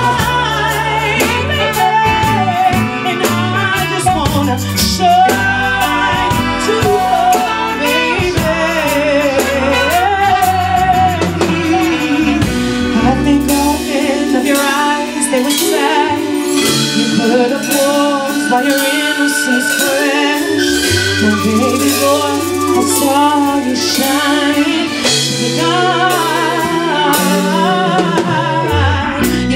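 Female soul singer singing live with a band, her voice sliding through long runs over bass, guitar and drums keeping a steady beat.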